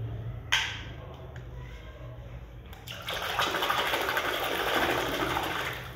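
A hand swishing and splashing hard through a plastic tub of muddy water for about three seconds in the second half. A single brief sharp noise comes about half a second in.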